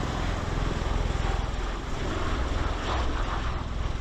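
Several V-22 Osprey tiltrotor aircraft flying overhead: the steady rush of their proprotors and turboshaft engines, with a fast low throb from the rotor blades.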